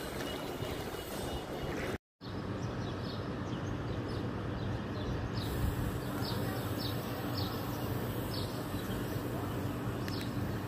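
Steady low rumble of traffic or an engine, with small birds chirping repeatedly over it from about three seconds in; the sound cuts out completely for a moment about two seconds in.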